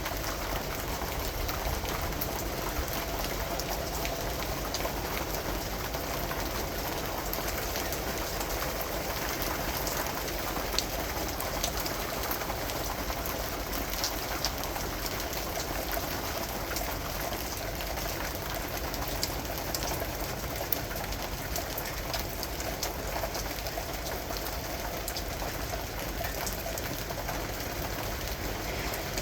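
Steady rain falling, with many individual drops pattering close by over an even wash of rain noise.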